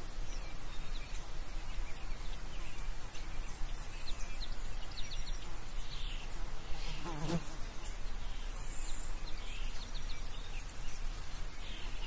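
Countryside outdoor ambience: scattered short bird chirps over a steady low wind rumble. A flying insect buzzes briefly past the microphone about seven seconds in.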